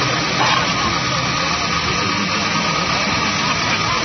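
Steady noisy background with a mechanical, engine-like hum and a murmur of voices, with a faint steady high whine running through it.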